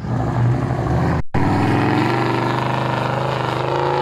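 Modified Toyota LandCruiser 79 series engine pulling hard under load in third gear low range as the four-wheel drive powers up a soft sand dune out of a sand bowl, the revs climbing near the end. The sound cuts out for an instant about a second in.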